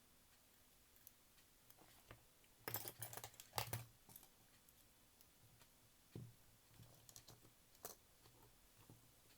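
Faint clicks and taps of small parts and tools being handled at a workbench, with a cluster of louder clicks about three seconds in and single clicks near six and eight seconds.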